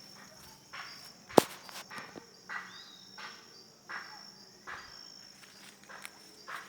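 Insects chirping steadily in a high register, with one sharp click about a second and a half in and a few soft rustles now and then.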